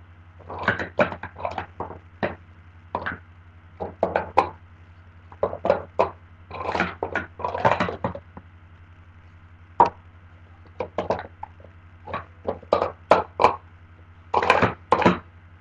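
Plastic sport-stacking cups clacking against each other and the tabletop as pyramids are rapidly stacked up and brought down, in quick runs of clacks with short pauses between.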